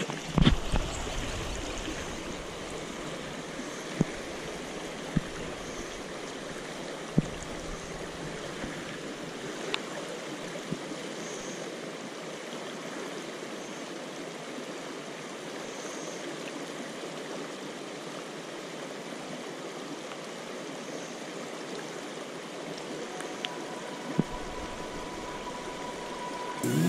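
Shallow river current running steadily over stones, with a few sharp knocks, the loudest just after the start and single ones now and then.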